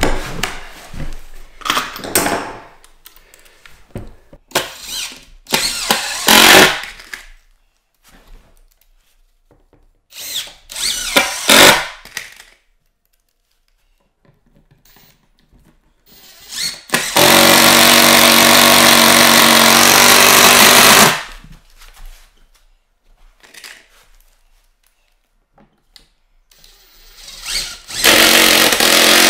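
Cordless drill-driver driving screws down through old floorboards into the joists and a new timber brace: several short bursts, then one long steady run of about four seconds, and another run near the end.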